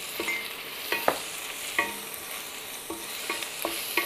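Onions and ginger-garlic paste sizzling in hot oil in a kadhai while a wooden spatula stirs them. The spatula knocks and scrapes against the pan about eight times, each knock leaving a brief ring.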